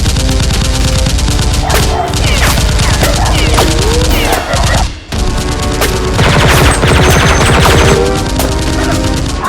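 Rapid gunfire sound effects, volleys of automatic fire, laid over background music; the firing is densest from about six to eight seconds in.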